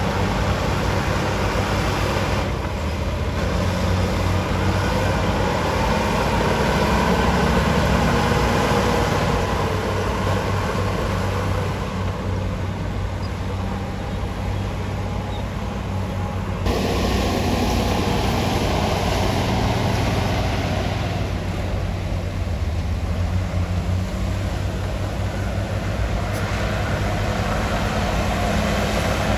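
Diesel engine of heavy earthmoving machinery running steadily under load, its note rising and falling. The sound shifts abruptly about two-thirds of the way through.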